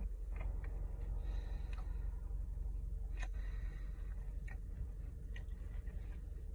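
A man chewing a mouthful of a rice, falafel and vegetable bowl: a handful of scattered soft mouth clicks over a steady low hum.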